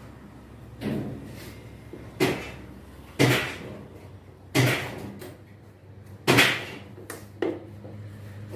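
Six irregular knocks and clunks from parts and tools being handled against a washing machine's metal cabinet during reassembly.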